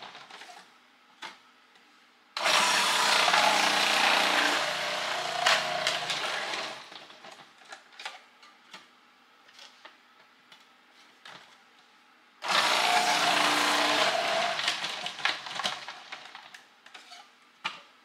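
Food processor with a shredding disc shredding zucchini pushed down the feed tube: two loud stretches of shredding about four seconds long, one a couple of seconds in and one about twelve seconds in, each tailing off as the piece is used up. Between them a faint steady hum and light clicks as new pieces are loaded into the feed tube.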